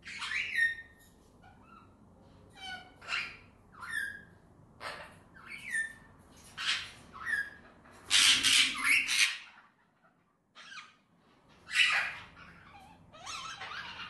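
Pet cockatiels calling in short chirps and squawks that drop in pitch, repeated every second or so. About eight seconds in there is a loud flurry of wing flapping as one bird beats its wings on the hand, and a shorter flurry follows a few seconds later.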